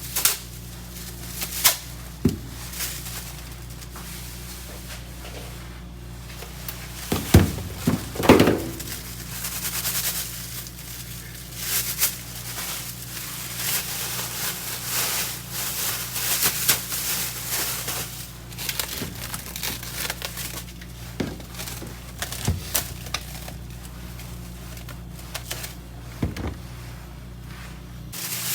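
Rustling and crinkling of things being handled, with scattered clicks and knocks, over a steady low hum.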